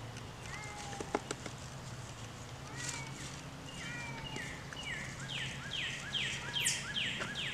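An animal calling: a few short, curving cries, then from about halfway a quicker run of harsher calls, about two or three a second. A low steady hum runs underneath.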